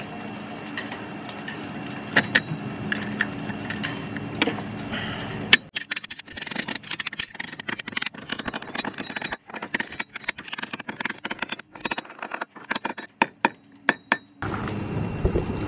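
Light metallic clicking and rattling of a stainless-steel turning block and its bolts being held and fastened down onto a sailboat's cap rail, over a steady low hum. About five and a half seconds in, the hum drops away and a dense run of quick clicks and rattles goes on until shortly before the end.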